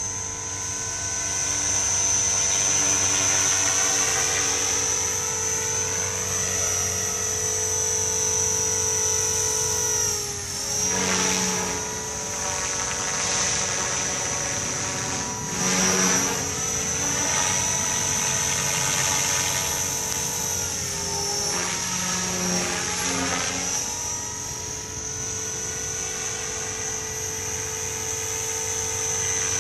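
Blade 500 electric RC helicopter flying 3D: a steady high motor-and-gear whine over rotor noise. The pitch sags and recovers three times during the manoeuvres: about a third of the way in, around the middle, and again about two thirds through.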